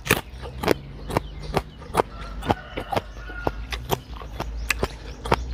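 Close-up chewing of crunchy raw Thai round eggplant and papaya salad: short, crisp crunches about two a second, over a faint low hum.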